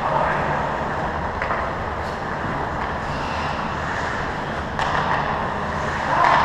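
Steady hum and echoing wash of an indoor ice rink, with a few faint knocks from play at the far end of the ice.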